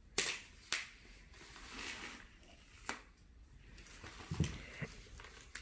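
Scissors cutting into the plastic wrapping of a large fireworks assortment box: a few sharp snips with soft rustling of the wrap between them.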